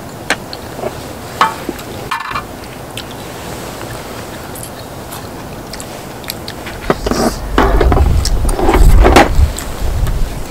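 Close-miked eating sounds: a few light clicks over a steady hiss, then from about seven seconds in louder, irregular chewing and mouth noises with a low rumble on the microphone.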